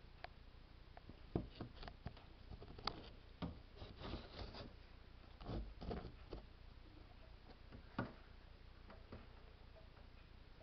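A scatter of irregular light clicks and knocks, bunched from about a second and a half to eight seconds in, over a low steady hum.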